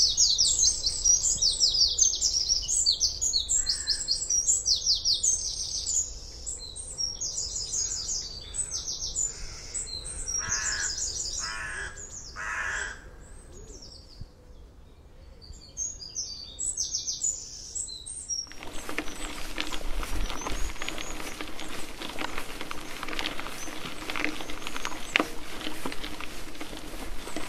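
Songbirds singing busily in a hedgerow, with a larger bird giving a few loud harsh calls about halfway through. About two-thirds of the way in it cuts abruptly to the steady rolling noise of a bicycle's tyres on a rough gravel track.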